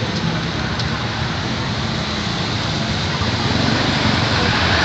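Steady hiss of rain mixed with the low rumble of road traffic.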